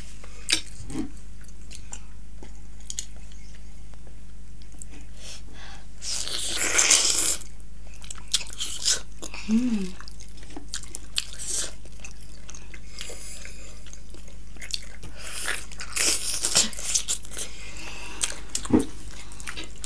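Close-miked biting and chewing of steamed buff (buffalo-meat) momo and fried chicken lollipop, with scattered wet clicks and louder juicy bites about six seconds in and again around sixteen seconds, over a steady low hum.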